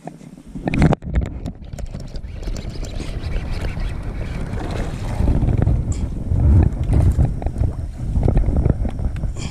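A sudden loud splash or knock, then rough splashing and knocking against a kayak, with wind buffeting the microphone.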